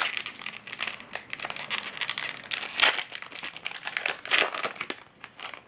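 Foil wrapper of a sealed hockey card pack crinkling as it is handled and torn open, a dense crackle that thins out near the end.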